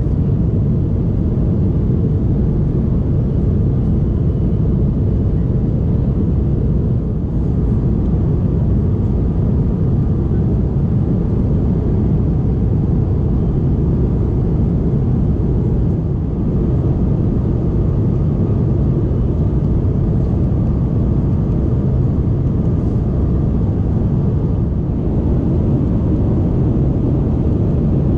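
Steady low roar of an Airbus A330-300's cabin in flight: its two General Electric CF6-80E1 turbofan engines and the airflow over the fuselage, heard from a rear economy window seat.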